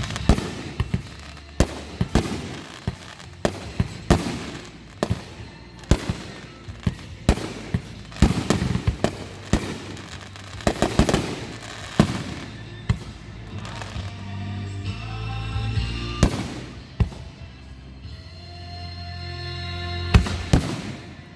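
Fireworks show: aerial shells bursting in rapid succession, a sharp bang every half second or so, some in quick clusters. Music plays underneath the bangs and is clearest in the second half.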